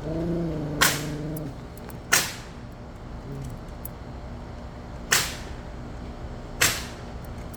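Pneumatic nail gun firing four sharp shots at irregular intervals during repair work on the building.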